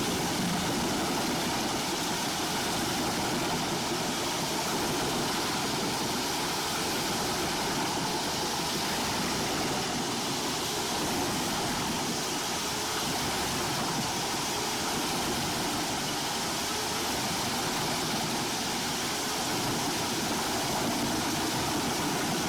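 Large industrial wood chipper running steadily: an unbroken, noisy mechanical drone of engine and rotor, with no strokes or pauses.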